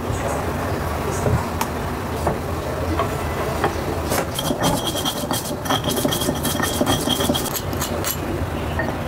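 A knife knocks on a wooden chopping board as tofu is sliced. About four seconds in comes a quick run of scraping clicks with a thin squeak, from a metal spoon scraping a stone mortar. A steady low rumble runs underneath.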